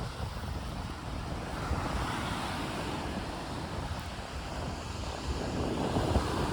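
Mediterranean surf breaking on a beach, with wind buffeting the microphone. The waves are strong, swelling louder near the end.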